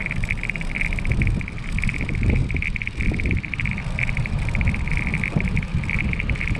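Bicycle riding on a gravel-surfaced path: wind buffeting the camera microphone and tyres rolling, heard as a fluttering rumble, with a steady, rapidly pulsing high-pitched whir throughout.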